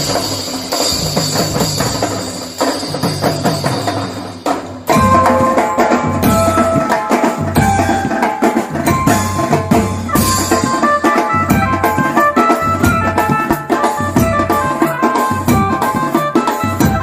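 Music with a steady drum beat; about five seconds in it changes abruptly to louder music with a held melody over the drums.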